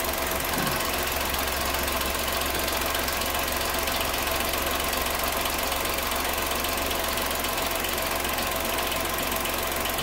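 Chevrolet Tracker turbo three-cylinder engine idling with the brake pedal pressed, its engine-driven vacuum pump making a fast, dry tapping. The noise comes from the pump's plastic vanes drawing vacuum for the brake booster and is considered normal for these GM turbo engines.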